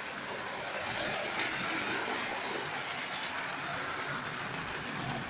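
Model trains running on a model railway layout: a steady whirr of the locomotive motors and wheels on the track, with a single click about one and a half seconds in.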